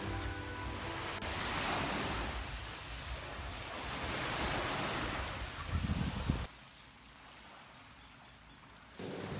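Small waves lapping and breaking on a sandy shore, with wind gusting on the microphone just before the sound cuts off suddenly about six and a half seconds in, leaving near silence.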